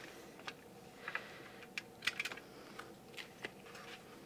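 Light, irregular clicks and taps of a metal watercolour palette tin being opened out and handled, its hinged lids knocking against the tin.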